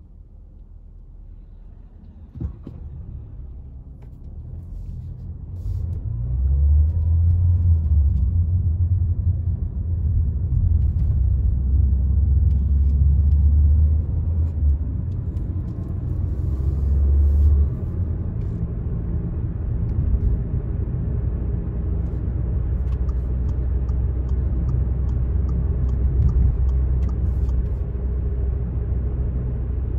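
Low rumble of a car heard from inside the cabin. It builds over the first few seconds as the car pulls away from a stop, then runs steadily at speed. A single click comes about two and a half seconds in.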